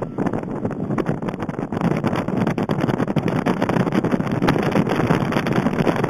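Strong wind buffeting the microphone: a loud, rough rushing noise with scattered crackles.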